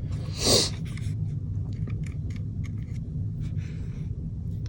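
Small scattered clicks and scrapes of greasing work as pack grease is worked into airsoft gearbox bearings, over a steady low hum. A brief hiss about half a second in.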